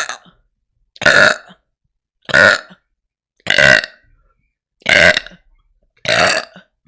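A person burping loudly over and over, a short belch about every second and a quarter, six in a row.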